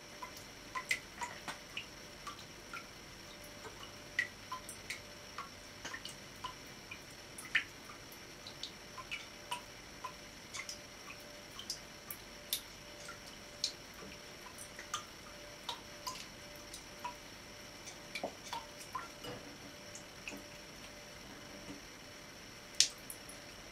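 Water dripping from a kitchen mixer tap into a stainless steel sink while a cat drinks at the spout: light, irregular plinks, about one or two a second, with a louder one near the end.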